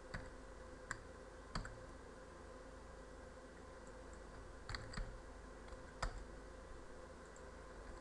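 About half a dozen sharp computer mouse and keyboard clicks at irregular intervals, two close together around the middle, over a faint steady hum.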